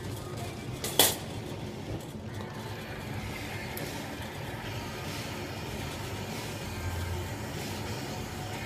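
A sharp pop about a second in as the glass lathe's burner is lit, then the steady rush of the torch flame burning.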